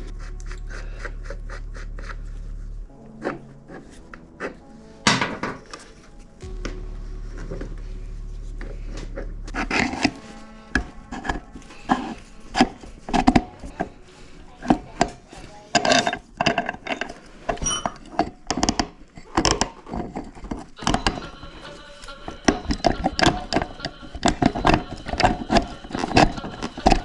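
Background music with a held low bass note, over many quick clicks and clanks of tools and small metal parts being handled.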